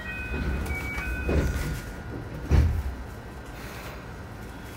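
Train door-closing chime, a few short electronic tones at stepped pitches, then a heavy thud about two and a half seconds in as the carriage's sliding doors shut, over the low hum of the standing train.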